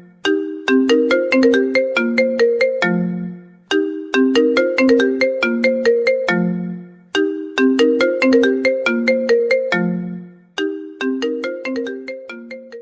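Mobile phone ringtone melody: a short tune of quick, bell-like struck notes, its phrase repeating about every three and a half seconds.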